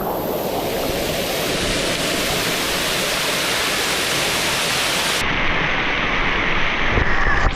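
Steady loud rush of falling and splashing water from water-park features.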